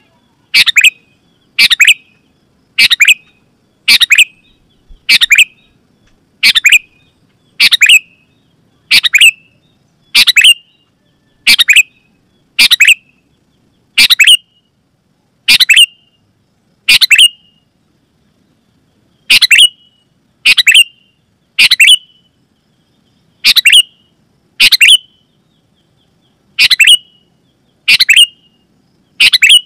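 Sooty-headed bulbul (kutilang) giving a short, loud call over and over, about one call a second, with one short break partway through.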